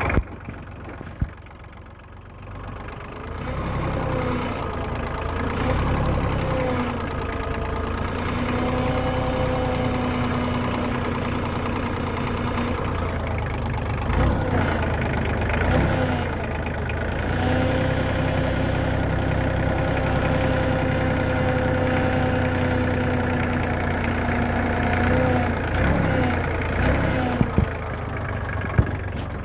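Kioti LK3054 compact tractor's diesel engine idling, with a steady whining moan from near the hydraulic pump. The moan bends in, holds for several seconds, fades out, then comes back for a second long spell. It is an unexplained noise that began after a short low-speed drive in cold weather.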